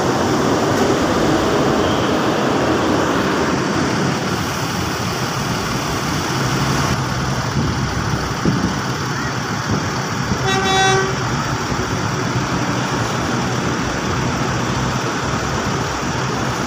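Diesel buses running in the yard, a steady engine noise, with one short horn toot about ten seconds in.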